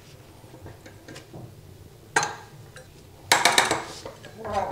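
Sharp metal clinks of a crescent wrench and a ferrule puller as the puller's screw is forced round to draw a stuck compression ring off a copper pipe: one clink about two seconds in, then a quick cluster of clinks a little after three seconds.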